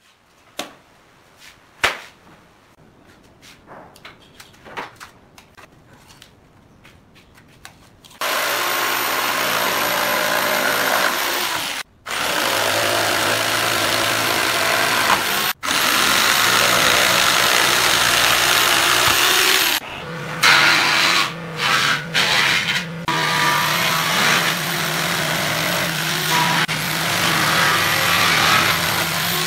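Electric jigsaw cutting through wooden pallet slats: a steady buzzing saw with a high whine, stopping briefly and restarting a few times. Before the saw starts, about eight seconds of scattered light knocks and clicks of wood being handled.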